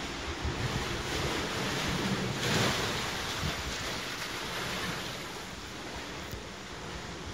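Sea waves washing on a shore, with wind buffeting the microphone; the rush swells to a peak about two and a half seconds in, then eases.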